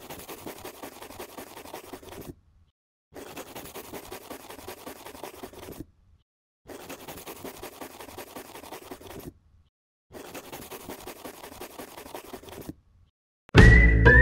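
Pen-on-paper writing sound effect, scratching in four stretches of two to three seconds each with short silent pauses between. Loud music starts just before the end.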